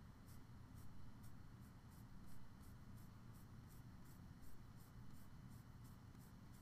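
Graphite pencil scratching on paper in short, even hatching strokes, about three a second, faint.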